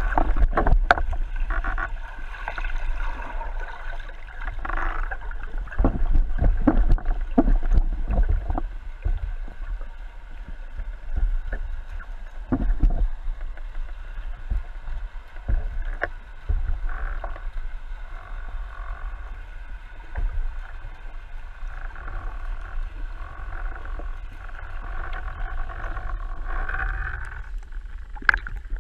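Underwater sound through a waterproof action-camera housing on a speargun: a muffled, steady low rumble of water with scattered knocks and clicks as the gun and housing move.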